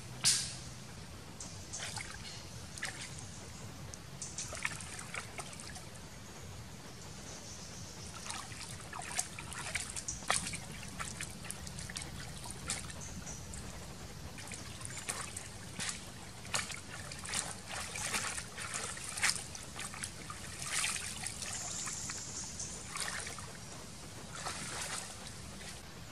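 Water splashing and trickling as hands wash raw meat in a woven basket dipped in river water. Small splashes come at irregular moments, with a sharper splash right at the start.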